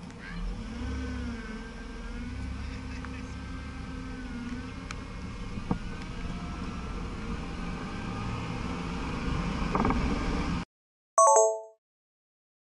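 Car engine pulling away and accelerating, its note rising and wavering over steady road noise. It cuts off abruptly about ten seconds in and is followed by a short electronic chime from the Sony Action Cam logo.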